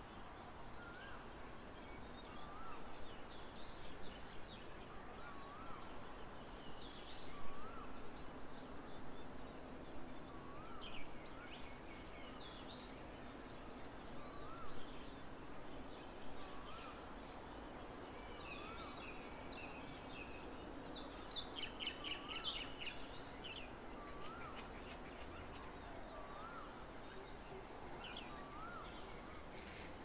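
Birds calling: one bird repeats a short whistled up-and-down note about every two seconds, while other birds chirp and twitter higher up. There is a quick run of chirps a little past the middle.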